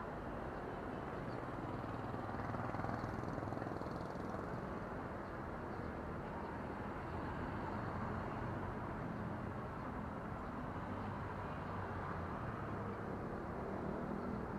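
Steady background rumble of distant road traffic, an even noise with a faint low hum.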